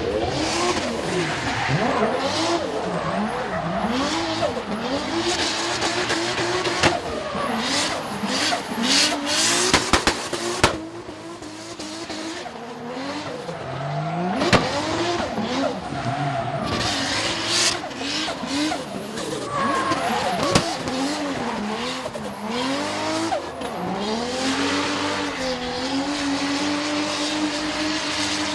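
Drift car engine revving hard, its pitch climbing and dropping again and again, with tyres squealing and skidding through a long smoky slide. A cluster of sharp cracks comes about eight to ten seconds in, and near the end the engine holds a steadier high note.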